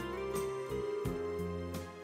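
Instrumental background music, with new notes struck about every third of a second.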